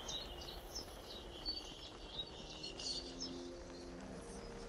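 Faint outdoor ambience: scattered short, high chirps, several a second at times, over a low steady hiss.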